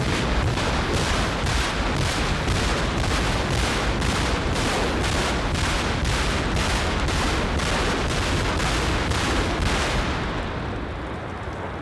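Multiple launch rocket system firing a ripple salvo: rockets leaving the launcher about two a second in a continuous roar, tailing off about ten seconds in.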